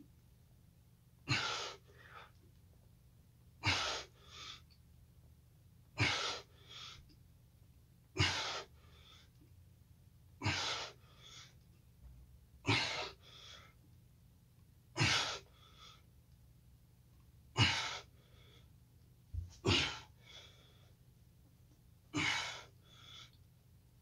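A man breathing hard through slow push-ups, one breath per rep about every two and a half seconds: a sharp, forceful exhale, then a shorter, fainter breath.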